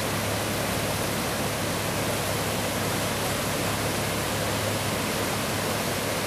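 Floodwater rushing over a low-water river crossing: a steady, even roar of running water.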